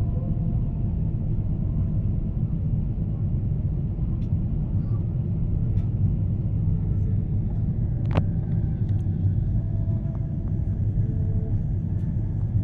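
Steady low rumble of cabin noise inside a Boeing 777-300ER on approach, the engines and airflow heard through the fuselage. A single sharp click sounds about eight seconds in.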